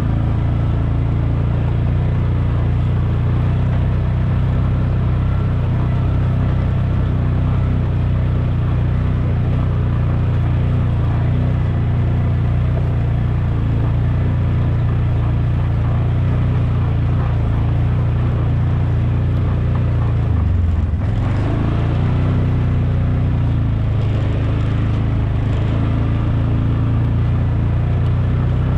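ATV (four-wheeler) engine running steadily while riding, its note dipping briefly about two-thirds of the way through and then picking back up.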